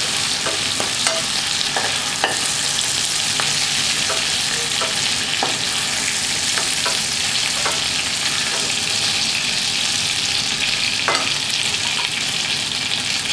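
Mustard oil sizzling steadily in a non-stick kadai as turmeric-coated prawns are lightly fried, with scattered light taps and scrapes of a spatula against the pan as the prawns are lifted out.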